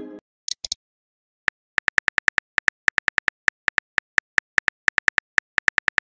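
Keyboard tap clicks of a texting-app animation as a message is typed, about five a second, starting about a second and a half in. Before them, the fading tail of a chime-like message pop.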